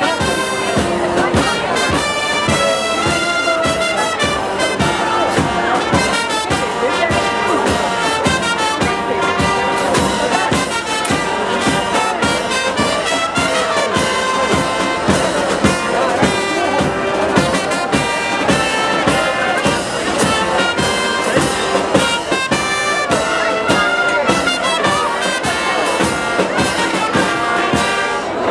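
Giglio feast brass band playing, with trumpets and trombones over a steady drum beat.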